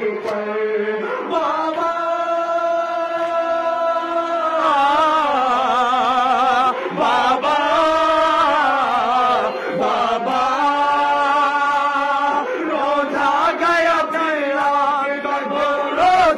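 A man chanting a noha, a Shia mourning lament, into a microphone, drawing out long held notes that waver heavily in the middle.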